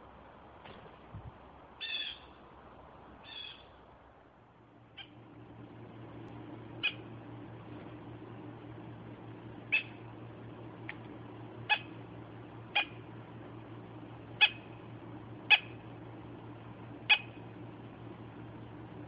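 Blue jays calling: two harsh calls about two and three and a half seconds in, then about eight short, sharp call notes spaced one to two seconds apart. A steady low hum comes in about four seconds in and carries on under the calls.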